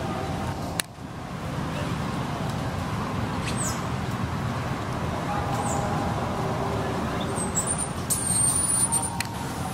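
Steady rumble of road traffic, with a few short high-pitched squeaks and, near the end, a longer wavering high call lasting about a second.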